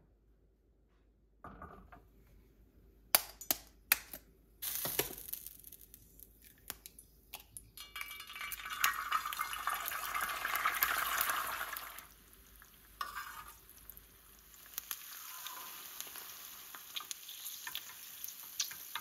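An egg is fried in oil on a hot flat griddle (tawa). A few sharp taps and clinks come a few seconds in, then a loud sizzle about halfway through as the egg hits the hot oil. It settles into a steadier, quieter frying sizzle toward the end.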